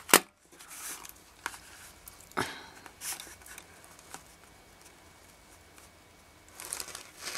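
Paper sheets and a small cardboard box of staples handled on a work surface: a sharp tap just after the start, then scattered faint rustles and light clicks, with a few more together near the end.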